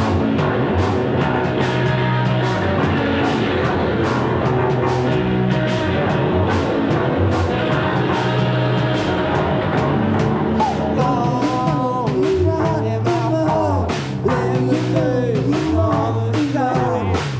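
Live rock band playing: electric bass and drums with a steady beat, with a singing voice coming in about ten seconds in.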